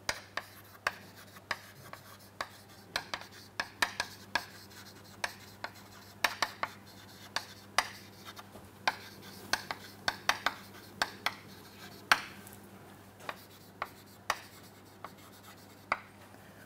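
Chalk writing on a chalkboard: irregular sharp taps and short scratchy strokes as words are written out.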